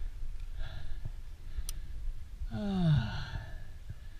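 A rock climber's breathing, with one voiced breath out that falls in pitch about two-thirds of the way through. About halfway through there is a single sharp metallic click as the rope is clipped into the quickdraw's carabiner, all over a low rumble.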